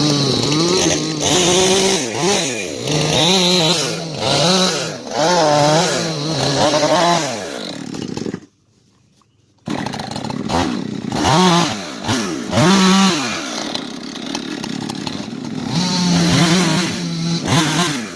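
Chainsaw cutting wood, its engine revving up and down again and again as the chain bites and frees. The sound drops out abruptly for about a second midway, then carries on.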